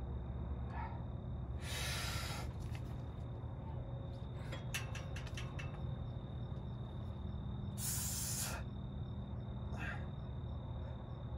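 A man's hard hissing breaths, blown out forcefully while lifting and pressing a barbell, loudest about two seconds in and again near eight seconds, with fainter ones between. A quick run of sharp clicks comes around the middle, over a steady faint high tone.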